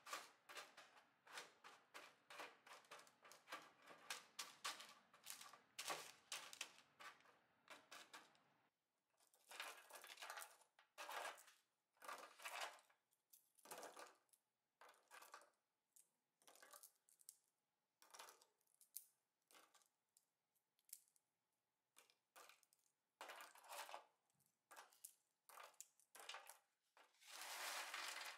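Caramel-coated popcorn crackling and rustling on parchment paper as it is spread with a silicone spatula and broken apart by hand. The crackling is dense for the first eight seconds or so, then comes in short separate bursts, with a thicker burst near the end.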